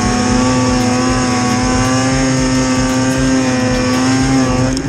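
Ski-Doo Summit snowmobile's two-stroke engine running at high, steady revs while the sled ploughs through deep powder snow.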